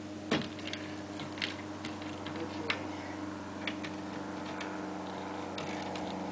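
Irregular metal clicks and taps of a wrench working on the wheelbarrow handle's bolts and nuts, which turn with the bolts instead of coming loose. A steady low hum runs underneath.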